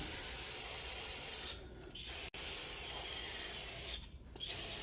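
Aerosol spray lubricant hissing in bursts onto garage door torsion springs and hinges: one burst of about a second and a half, a short break, then a longer burst, and a third starting near the end.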